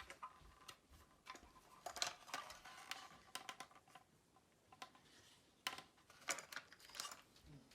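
Light, scattered clicks and taps of a plastic toy train caboose being handled and set down on a table, with a few sharper knocks in the second half.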